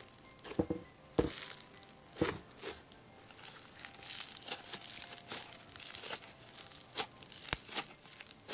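Crunchy, cloud-textured Cotton Candy Crispy Cup slime being squished and pressed by hand, crackling and popping. A few separate sharp pops come in the first couple of seconds, then the crackling turns dense and near-continuous from about three and a half seconds in.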